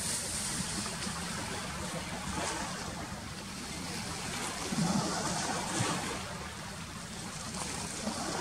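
Lake water lapping at the shore, a steady wash of noise, with a brief louder patch about five seconds in.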